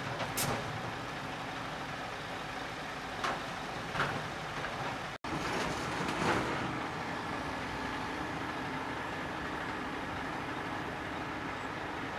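Compact excavator's diesel engine running steadily, with a few sharp knocks and crunches as its bucket tears into the fire-damaged shed.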